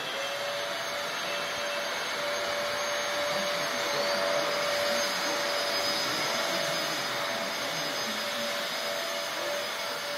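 Several Dyson vacuum cleaners running together: a steady rushing noise with a whine that rises in pitch as the motors start, and a second, higher whine rising in about four seconds in.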